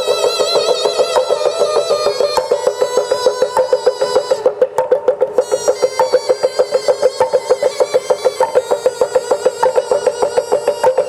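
Music: a high wind melody with vibrato over a fast, steady pulsing tone; the melody breaks off briefly about halfway through.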